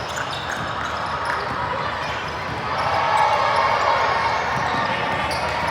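A basketball bouncing on a gym court during a game, over the mixed chatter of spectators, which swells about three seconds in.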